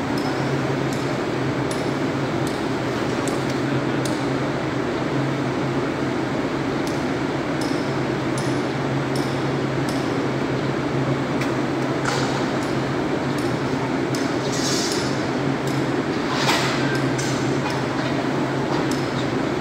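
A steady, low machine hum with irregular light clicks and ticks over it, and a couple of brief hissing swells.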